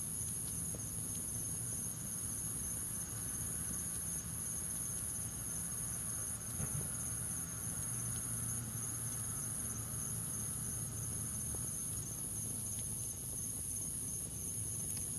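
Crickets trilling steadily in a continuous high-pitched chorus, over a faint low hum.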